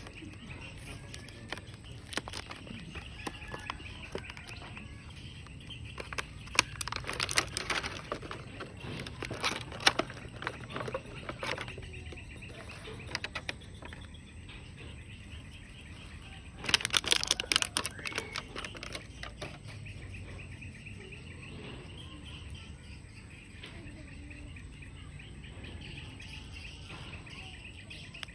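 Birds chirping steadily in the background, with two spells of crackling, clicking handling noise, the first lasting several seconds and the second shorter, about two-thirds of the way in.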